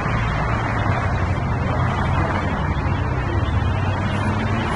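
Steady street traffic noise: vehicle engines running close by with a low, continuous hum.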